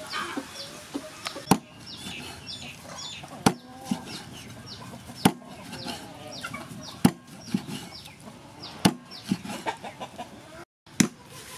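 Heavy cleaver chopping through a whole fish onto a wooden chopping board: five loud chops about two seconds apart, with lighter knocks between. Small birds chirp rapidly throughout.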